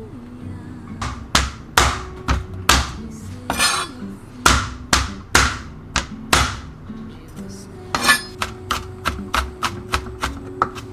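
Knife chopping on a cutting board: a run of separate, slower cuts, then a quick burst of rapid chops near the end, over soft background music.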